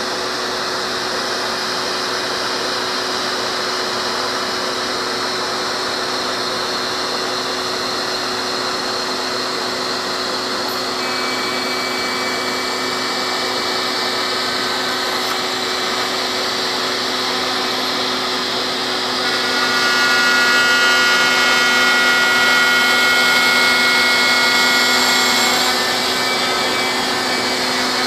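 CNC router spindle and its dust-collection vacuum running while the bit mills a 3/16-inch aluminum plate: a steady hum under a loud hiss. High whining tones set in about eleven seconds in, and grow louder and fuller for about six seconds in the latter part before easing back.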